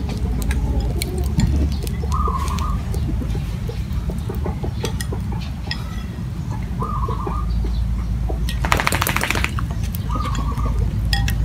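Village yard ambience: a bird calling three times in short, even calls a few seconds apart, over a steady low rumble. Light clicks of a metal spoon against ceramic bowls, and a short rapid rattling burst about nine seconds in.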